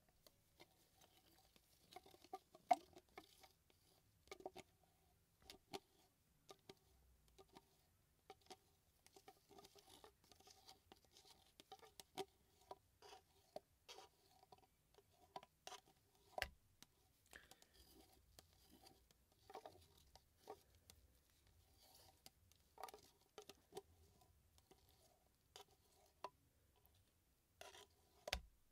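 A stir stick scraping and tapping inside a small clear plastic cup as the last of the resin is scraped out into another plastic cup: a quiet, irregular run of light clicks and scrapes with a few sharper taps.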